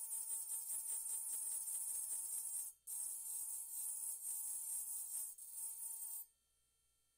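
Handheld rotary engraving pen with its burr grinding into a wine glass: a high-pitched whine with a fast, gritty chatter as the bit cuts the glass. It breaks off for a moment about three seconds in and stops about six seconds in.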